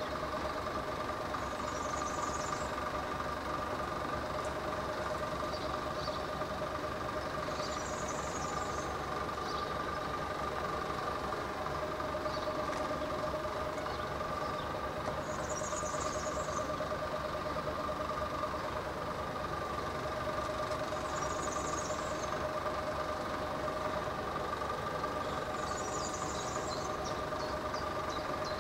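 An engine idling steadily, with a steady whine over it and short high chirps every few seconds.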